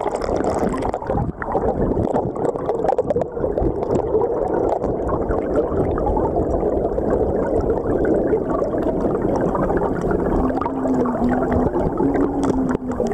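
Muffled underwater sound of a flowing river picked up by a submerged camera: a steady rushing and gurgling of the current, with a few small knocks as stones on the riverbed are moved. A low steady hum comes in over the last few seconds.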